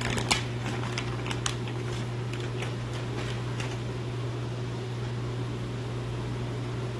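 Steady low mechanical hum, with a few light clicks and rustles of plastic food packaging being handled during the first second and a half.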